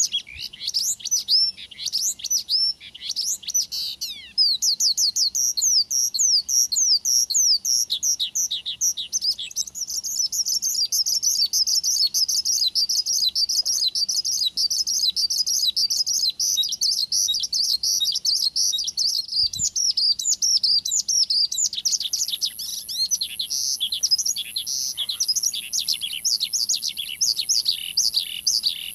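Male Javan bush lark (branjangan) singing vigorously: an unbroken, rapid run of short, high down-slurred chirps, pausing briefly about four seconds in. It is the kind of full song played to a caged bush lark as a lure to set it singing.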